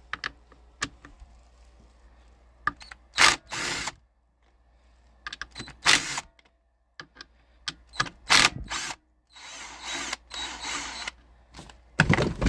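A tool running in the bolts of a Honda Grom's spring-loaded clutch lifter plate in short bursts, with a longer run about ten seconds in and light clicks of metal parts between them.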